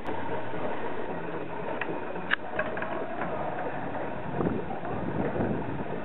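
Heavy wooden sectional garage door being raised by its opener: a steady mechanical running and rattle as it rolls up its tracks, with a sharp click about two seconds in.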